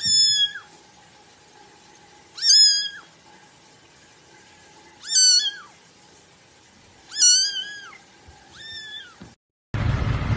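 Young kitten meowing loudly: five high-pitched meows, each about half a second long and falling at the end, about two seconds apart. Near the end the sound cuts suddenly to a steady low rumble of road and engine noise.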